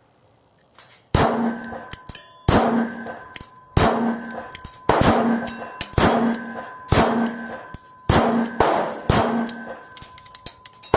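Smith & Wesson M&P 9 Shield 9mm pistol fired in slow, steady succession, about eight shots roughly a second apart, starting about a second in. Each shot is followed by the ringing clang of a steel target being hit.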